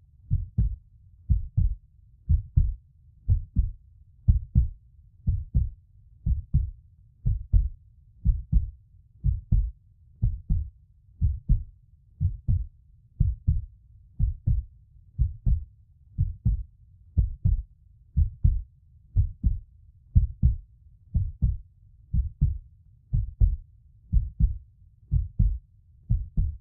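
A heartbeat, slow and steady at about one beat a second, each beat a low double thump (lub-dub).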